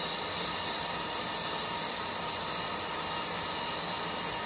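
Colchester Student lathe turning 40 Rockwell 17-4 PH stainless steel at about 1250 rpm with a carbide TCMT insert, 1 mm off each side. The cut and the running machine make a steady hiss with faint steady tones.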